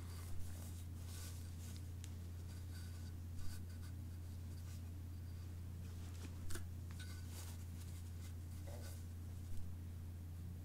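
Hand iron pressing a fabric collar on a tailor's ham: soft rubbing of the soleplate on cloth and a few light knocks, roughly every three seconds, over a steady low hum.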